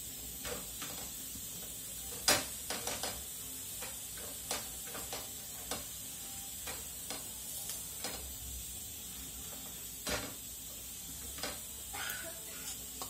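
Lachha paratha frying in a pan, a faint steady sizzle, with scattered taps and knocks as a spatula presses it down to crisp it. The sharpest knocks come about two seconds in and about ten seconds in.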